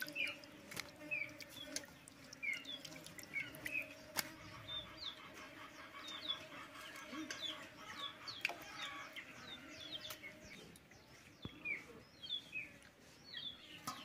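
Birds chirping in short repeated notes, with scattered light clicks and splashes of hands washing fish pieces in a steel bowl of water, over a faint steady hum.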